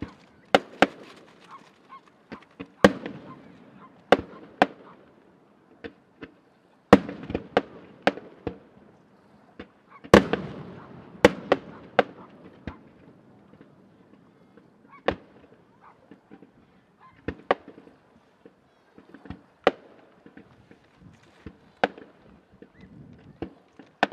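Aerial firework shells bursting in an irregular volley of sharp bangs, each followed by a rolling echo, coming thick and fast in the first half and thinning to scattered reports later on.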